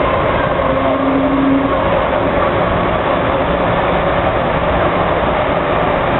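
MTR Kwun Tong Line metro train running, a steady rumble with a steady motor whine on top and a short low hum about a second in.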